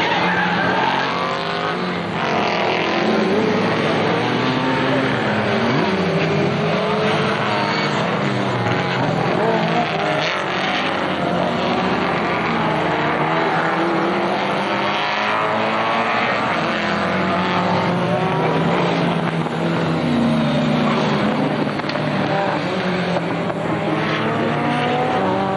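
A stream of 1960s saloon race cars at racing speed, including a big American V8 saloon, engines at full throttle. The engine notes overlap, rising and falling as the cars pass and change gear.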